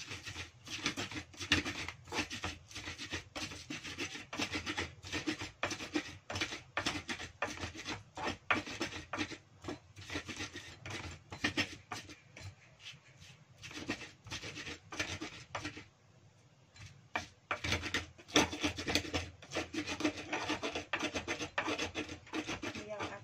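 Stone-style pestle (ulekan) grinding sliced chillies, shallots and garlic in a small cobek mortar into spice paste, in rhythmic scraping strokes about two or three a second. There is a brief pause about sixteen seconds in.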